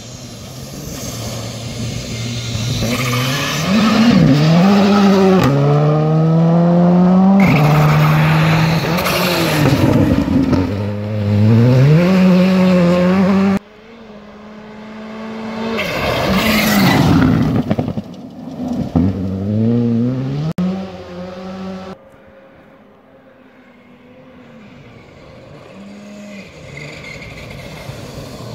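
Rally car engine revving hard and climbing through gear changes as the car comes up and passes, with tyres scattering gravel. After a sudden cut about 13 s in, another pass follows with the same rising, stepping engine note. Near the end a car is heard coming up again.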